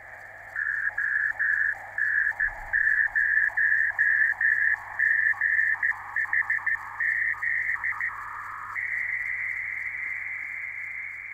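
The 10 GHz (3 cm) amateur beacon ON0GHZ, received by rain scatter on an RTL-SDR in USB mode, keying its callsign in Morse code. The rough, spread tone switches on and off in dots and dashes, dropping to a lower second tone between elements. About three-quarters of the way in it settles into a steady carrier tone.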